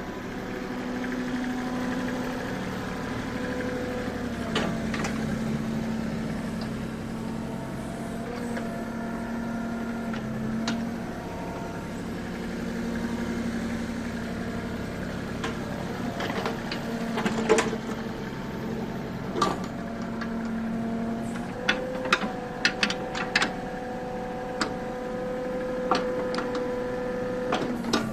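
Kubota U30-3S mini excavator's diesel engine running steadily, its pitch shifting slightly a few times, with scattered sharp clanks and knocks in the second half.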